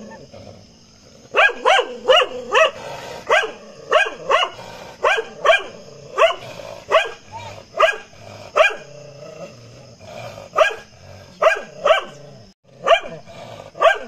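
A dog barking sharply and repeatedly at another dog in a standoff, a quick series of barks about two a second, starting about a second and a half in, with a short pause a little past the middle.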